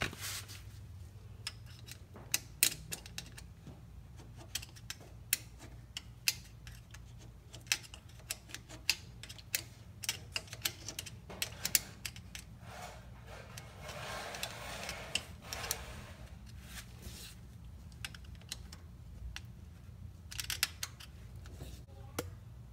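Irregular light metallic clicks and taps of hand tools working at a car's rear axle pinion, with a stretch of scraping or rustling partway through, over a steady low hum.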